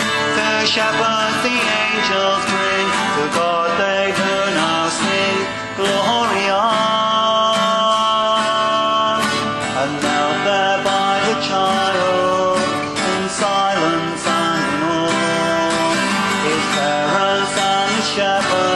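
Acoustic guitar strummed and picked as a song accompaniment.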